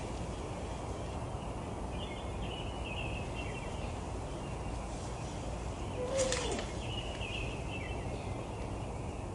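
Stray cat giving one short meow that slides down in pitch about six seconds in, over a steady background hiss with small birds chirping on and off.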